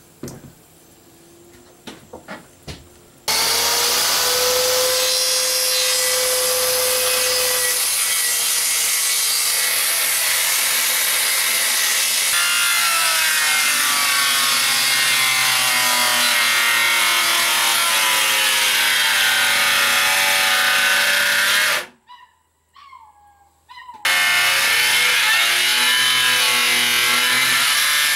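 Corded circular saw cutting plywood: after a few light knocks it starts about three seconds in and runs under load, its motor pitch wavering as the blade bites. It stops for a couple of seconds near 22 seconds in, then starts again and cuts on.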